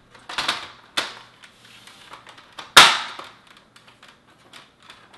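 Plastic front panel of a desktop computer tower being pressed onto its metal case: a couple of knocks about half a second and a second in, then one loud sharp snap about halfway through as it clicks into place, with small ticks and rattles around it.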